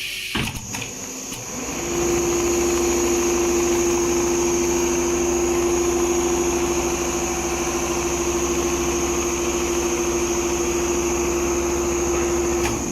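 Multihead industrial leather sewing machine starting up about two seconds in and running at a steady speed, a fast even rattle under a steady whine, then stopping just before the end.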